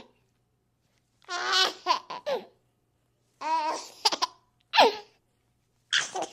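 Baby laughing in response to a game of peekaboo, in four short bouts separated by pauses, the pitch sliding down within each bout.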